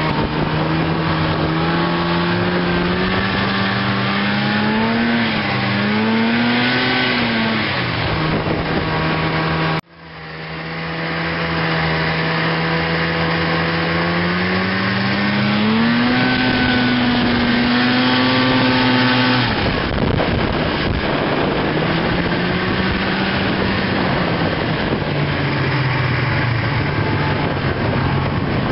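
Snowmobile engine running at speed, its pitch rising and falling with the throttle over a rush of wind and track noise. The sound cuts out for an instant about ten seconds in. Later the engine note fades and the steady rush takes over.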